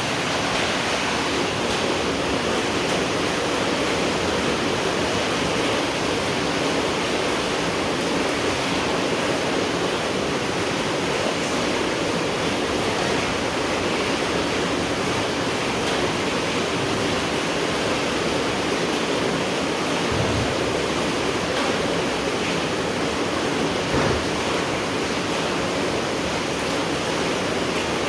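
Steady rain falling, an even hiss with no breaks, with two brief low thuds about four seconds apart in the latter part.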